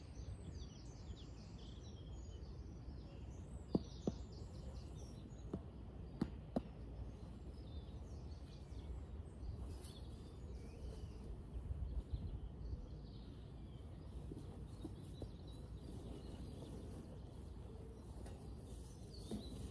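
Faint outdoor ambience: birds chirping over a low steady rumble, with a handful of light knocks between about four and seven seconds in.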